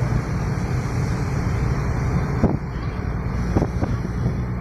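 Steady engine and road noise of a moving vehicle, with a few brief knocks past the middle.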